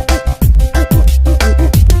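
Background music: an electronic hip-hop style track with a heavy bass beat and fast drum hits.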